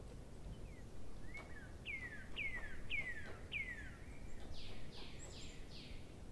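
A bird singing: four clear whistled notes, each falling in pitch, then four quicker and higher notes near the end.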